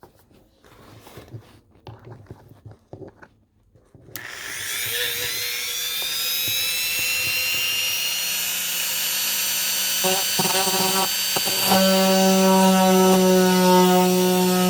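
Chicago Electric rotary tool with a diamond bit switched on about four seconds in, spinning up in pitch to a steady whine as it drills a citrine crystal under water. About twelve seconds in it grows louder, with a stronger low hum.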